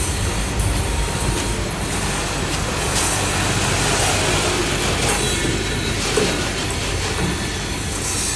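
Freight train rolling past at close range: a steady rumble of steel wheels on the rails.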